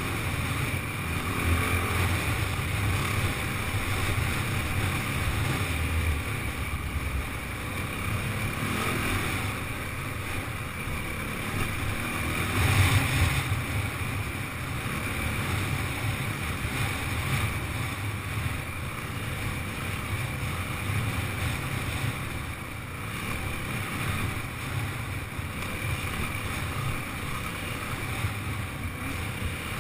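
Yamaha WR450F dirt bike's 450 cc single-cylinder four-stroke engine running under way on a rough dirt track, with wind noise on the microphone. A brief louder surge comes about halfway through.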